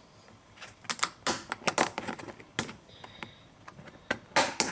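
Snap-on lid of a clear plastic storage tub being pried off by hand: a quick run of sharp plastic clicks and cracks as the rim comes free, with a few more clicks near the end.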